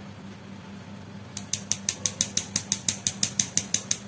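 Flour sifter clicking as dry flour mix is sifted over cake batter: a rapid, even run of sharp clicks, about seven a second, starting about a second in.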